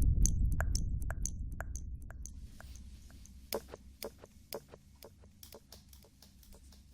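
Close-miked ASMR sounds: a deep low rumble fading away over the first few seconds, with light, crisp clicks and taps a few times a second.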